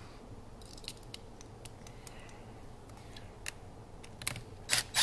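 Scattered light clicks and taps of small parts being handled during spark plug cap work on an engine, a few at first, then a quicker, louder run of clicks near the end.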